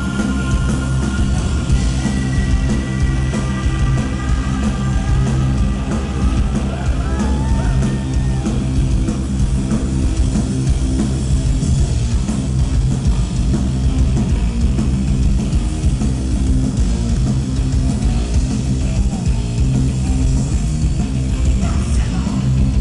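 Live stoner rock band playing loud, heard from the crowd: distorted electric guitars through Marshall stacks, bass and drums with a heavy, dense low end. Held, bending high notes ride over it for roughly the first eight seconds.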